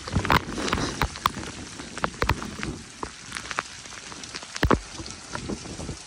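Heavy rain falling and splashing on the street, with many sharp drop hits close to the microphone and one louder knock a little before the end. The rain grows fainter toward the end.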